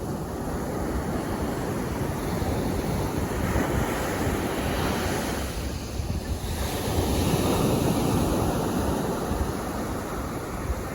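Calm sea waves washing onto the beach, the surf swelling twice as waves break and run up. Wind rumbles on the microphone underneath.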